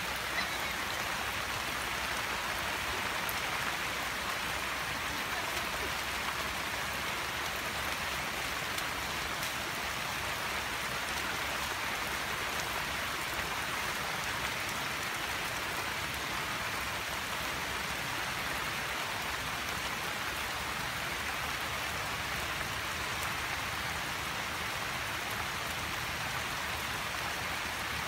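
Steady rain falling on a waterlogged rice paddy and the trees around it: an even, unbroken hiss.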